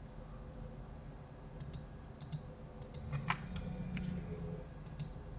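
Scattered clicks of a computer keyboard and mouse, mostly in quick pairs, with one sharper click a little past the middle. Under them runs a faint low hum.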